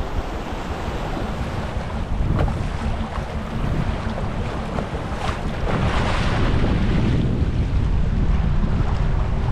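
River rapids rushing and splashing around a canoe, with wind buffeting the microphone; the water grows a little louder near the end.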